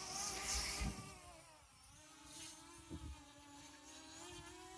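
Small toy drone's propellers buzzing as it flies: a faint, steady whine whose pitch wavers a little.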